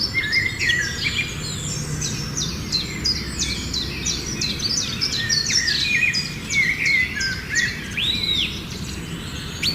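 Several birds chirping and calling at once, a dense run of quick, high notes that overlap without a break, with one longer arched note near the end.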